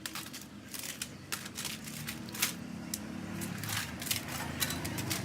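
Irregular crackling and crinkling clicks, like rubbish or packaging being handled, over a low hum that grows a little louder near the end.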